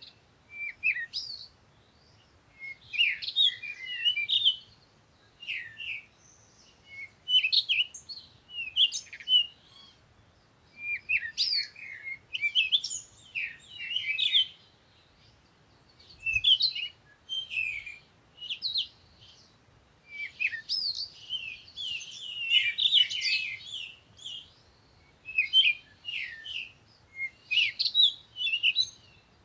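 Small birds chirping and twittering in short, high bursts every second or two, with brief pauses between.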